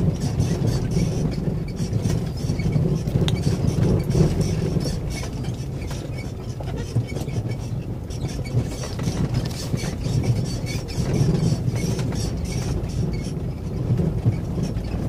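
Vehicle driving over a rough dirt road, heard from inside the cabin: the engine keeps up a steady low drone while the body rattles and clicks over the bumps.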